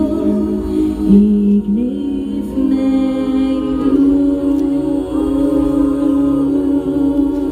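A woman singing live into a microphone, holding long notes that slide between pitches, over sustained backing music.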